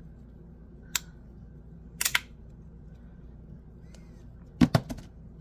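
Resin and metal fidget slider clicking sharply as its halves are slid in the hand: one click about a second in, two close together at about two seconds, and a quick cluster of louder clicks near the end.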